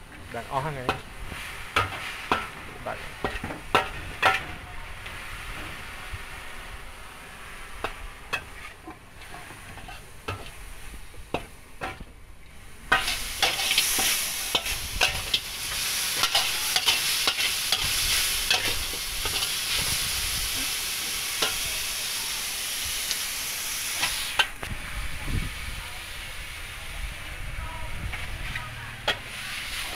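Stir-frying in an aluminium wok: a metal spatula scrapes and knocks against the pan over food sizzling. About halfway through, a louder steady hiss starts suddenly, runs for about ten seconds, then cuts off.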